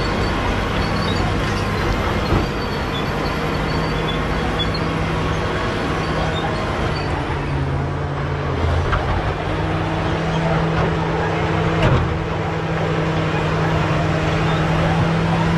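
Caterpillar D7G bulldozer's diesel engine running steadily, its engine note dropping briefly about halfway through. Two short sharp knocks sound, one about two seconds in and one about three quarters of the way through.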